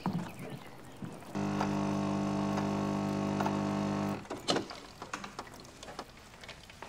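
Built-in automatic coffee machine dispensing coffee into a glass, a steady hum for nearly three seconds that stops abruptly, followed by a few light clicks and knocks as the glass is handled.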